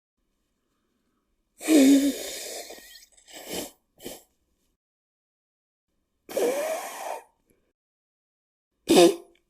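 A person blowing their nose into a tissue, in three separate takes. The first is a long, loud blow about one and a half seconds in, followed by two short puffs. The second is a shorter blow in the middle, and the third a quick, sharp blow near the end.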